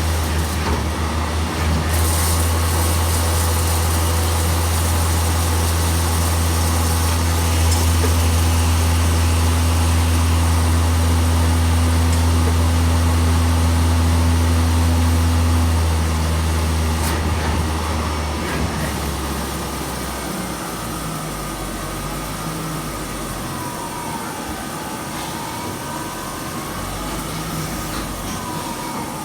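Mazak QT100MSY CNC lathe running, with a loud, steady low hum and a few steady tones. About 18 to 20 seconds in it drops to a quieter running sound. Near the end a whine twice dips and rises again in pitch.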